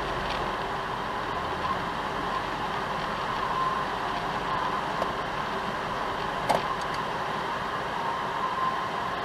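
Steady road and engine noise heard inside a car's cabin as it moves off at low speed, with a faint steady tone and a single sharp click about six and a half seconds in.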